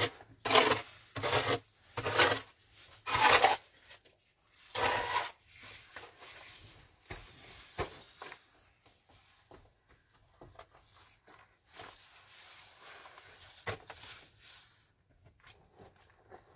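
A series of rough scraping strokes: about six loud ones, each under half a second, in the first five seconds, then fainter scratching and a few light knocks.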